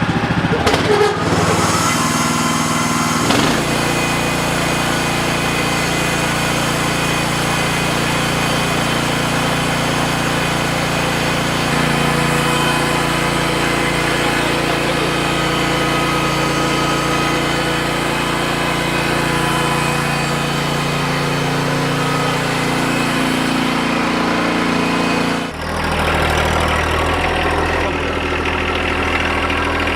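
Wood-Mizer LX55 sawmill's engine running steadily. Its note shifts about three seconds in, and again after a brief dip near the end.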